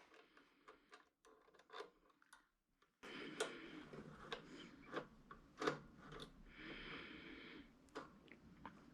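Light, scattered clicks and taps of hand tools and small parts being handled during repair work. About three seconds in, a faint steady hiss starts and runs under the clicks.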